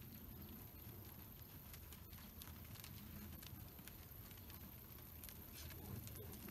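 Faint, scattered soft steps of cattle and a horse trotting on loose dirt, over a steady low rumble.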